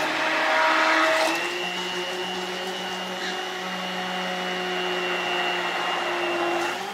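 Handheld stick blender running steadily in a plastic pitcher of soap-making oils, blending in kaolin clay and colloidal oatmeal before the lye goes in. A little louder for the first second, then it settles to a slightly lower, even hum.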